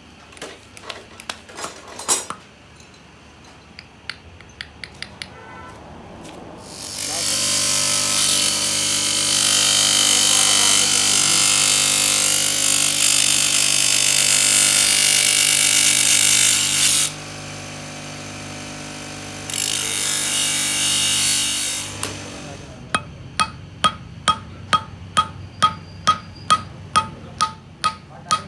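A few light metal taps, then a bench grinder's abrasive wheel grinding the steel ferrule of a wooden pressure-cooker handle, over the hum of its motor. The grinding stops for a couple of seconds while the motor runs free, then resumes. Near the end a hammer strikes the ferrule on a steel block about twice a second, each blow ringing.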